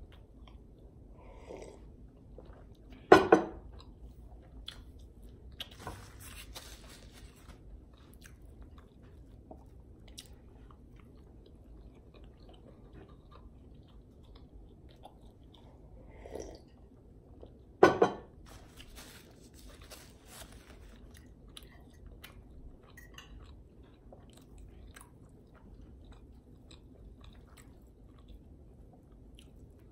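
Close-up mouth sounds of a person drinking from a mug: quiet sips and swallows. Two loud sharp sounds stand out, about three seconds in and again about eighteen seconds in.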